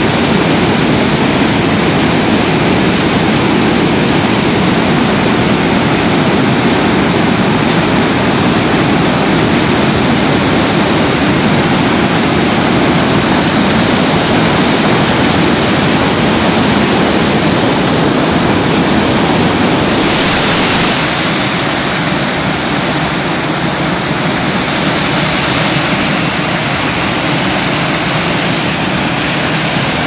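Waterfall, white water pouring down over rocks in a steady, loud rush of noise. It turns a little quieter about two-thirds of the way through.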